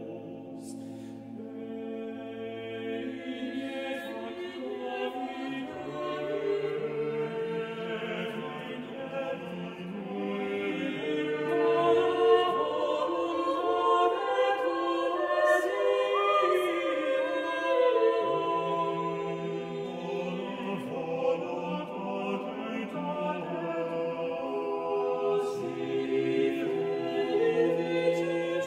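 Background music: a choir singing slowly, holding long notes that change pitch only every few seconds.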